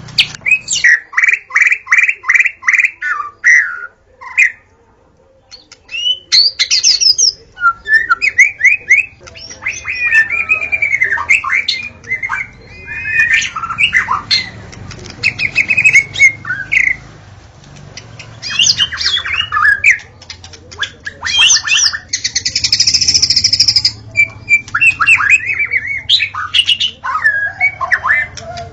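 White-rumped shama (murai batu) singing loudly in a long run of varied phrases: it opens with a quick series of repeated notes, breaks off briefly, then continues with rapid whistles and trills and a harsh rasping burst about two-thirds of the way through.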